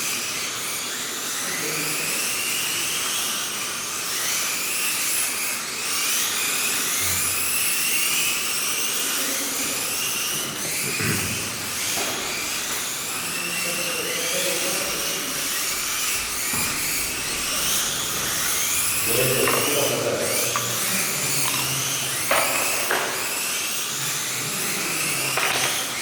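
Several Kyosho Mini-Z electric RC cars racing together, their small motors whining in overlapping tones that rise and fall over and over as the cars speed up and slow for the corners. Faint voices sit beneath.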